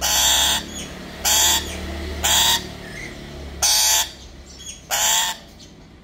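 Black-capped lory giving harsh, loud squawks, five short calls about a second apart.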